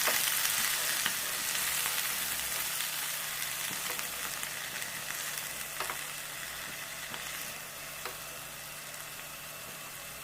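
Chopped amaranth leaves sizzling in hot ghee in a pan, with a few light taps of the spoon as they are stirred. The sizzle slowly dies down.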